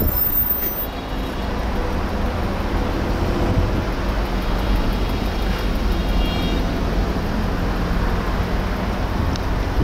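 Road traffic noise from dense, slow-moving city traffic: a steady low rumble of car engines and tyres.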